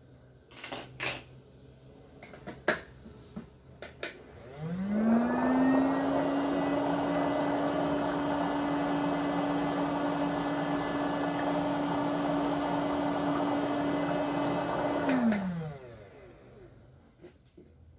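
HoMedics bubble footbath running with its basin empty: the motor spins up with a rising hum, runs about ten seconds as a steady hum with a buzzing rattle over it, then winds down with a falling hum. A few clicks and knocks come before it starts.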